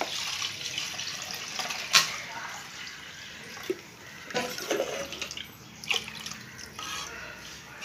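Carrot juice poured from a plastic bowl into a kadai of liquid, a steady splashing pour, with a sharp knock about two seconds in. Then come a few short taps and scrapes as a spoon scrapes the last of the juice out of the bowl.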